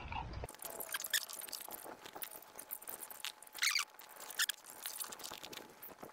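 Quiet eating sounds: chewing with small clicks and knocks as a ceramic spoon is set down in a bowl of fried rice. Two short squeaky sounds come about halfway through.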